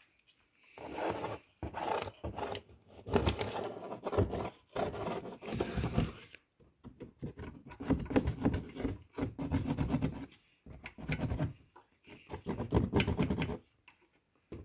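Drawing tool scratching across cardboard while a template outline is traced, in repeated rough strokes about a second long with short pauses between them.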